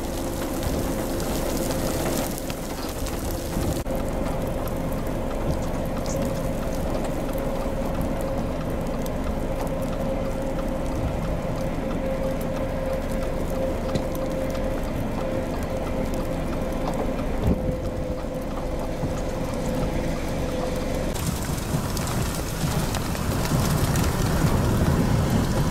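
Heavy rain and storm noise with a low rumble and a steady hum beneath it. About three-quarters of the way through, the hum stops and the sound changes to a louder, windier rush.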